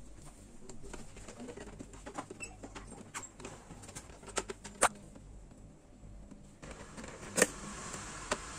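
Scattered plastic clicks and knocks as an espresso machine's water tank is lifted out and its top cover is taken off. There are a few sharp snaps, the loudest about five seconds in and again about seven and a half seconds in.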